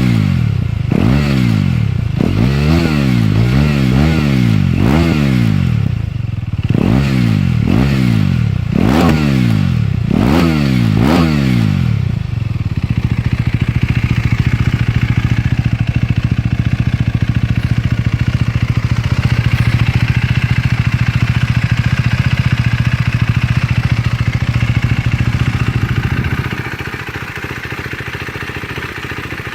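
KTM Duke 390's single-cylinder engine breathing through an aftermarket Akrapovic exhaust, blipped up and down about nine times in quick succession, then held at a steady speed before it drops back to a quieter idle near the end.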